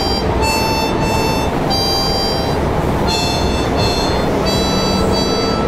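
Harmonica played in a string of held notes that change pitch every second or so, over the steady low rumble of a moving train carriage.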